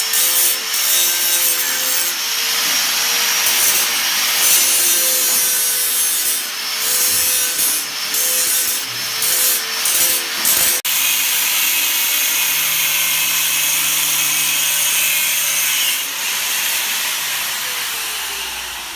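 Angle grinder cutting steel for a new bumper: a steady motor whine under a harsh grinding hiss, with the pitch sagging and recovering as the disc bites.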